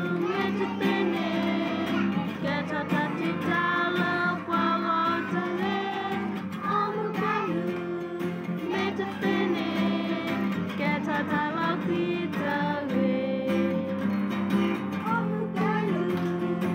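A song with acoustic guitar accompaniment and singing, young children's voices among the singers, running without a break.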